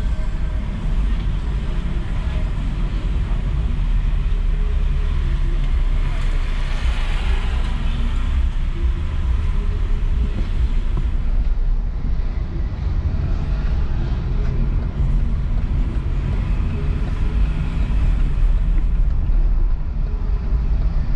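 A car driving slowly along a town street, heard from inside the cabin: a steady low engine and road rumble, with a brief louder swell of passing traffic about six to eight seconds in.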